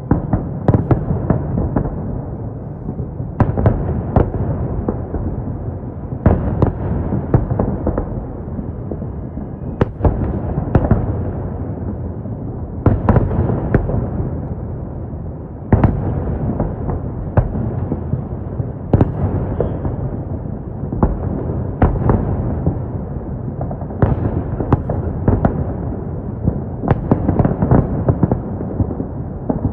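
Fireworks shells bursting in quick succession: repeated sharp bangs, often several in a cluster, over a continuous low rumble and echo of earlier bursts.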